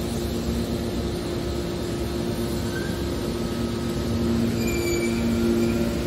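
Hydraulic scrap metal baler running with a steady, low machine hum that grows a little louder about four and a half seconds in. A few faint, short, high squeaks sound over it.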